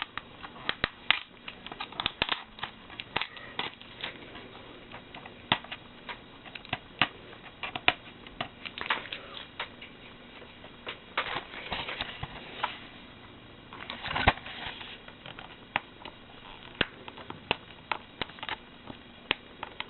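Plastic shrink wrap crinkling and crackling, with many irregular sharp clicks, as a DVD case is unwrapped and handled.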